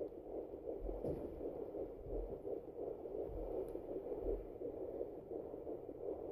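Sonoline fetal doppler's built-in speaker playing a fetal heartbeat at about 153 to 155 beats a minute, heard as a steady hissing sound.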